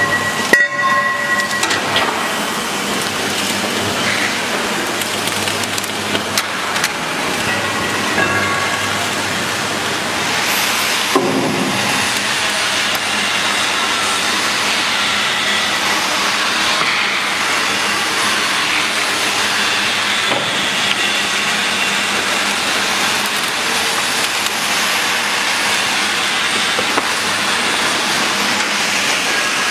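Geocell welding machine running: a steady hissing mechanical noise, with a few brief tones in the first couple of seconds and a short louder surge about eleven seconds in.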